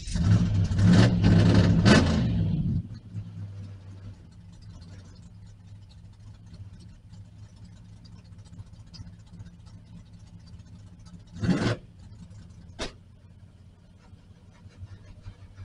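Turbo diesel engine of a drag-race Chevy Nova, heard from inside the car, firing up: a loud burst for the first couple of seconds, then settling into a steady idle. About halfway through there is a short burst, then a click.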